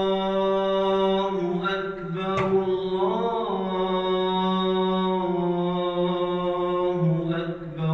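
A man's voice chanting in long held notes, in the style of Islamic recitation. The pitch steps every second or two, with a wavering ornamented turn about three seconds in.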